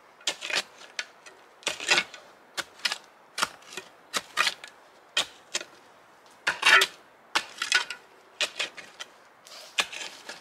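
Short-handled shovel digging into rocky soil: a rapid, irregular run of sharp chops and short scrapes as the blade bites into earth and strikes stones, about two a second.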